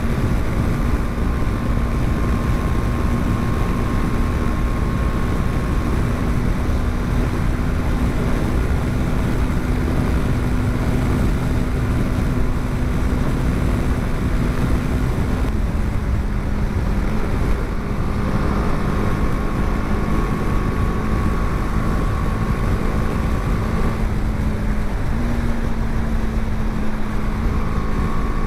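BMW G 310 GS's 313cc single-cylinder engine running steadily at highway cruising speed, mixed with wind rushing over the microphone. The engine note drops slightly about halfway through and rises again a few seconds before the end.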